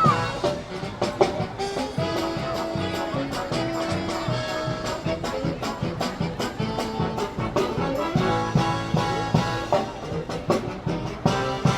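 A live brass band playing, with held trumpet and trombone notes over a steady beat.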